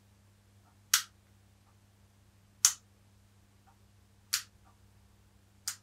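Four sharp clicks about a second and a half apart, over a steady low electrical hum.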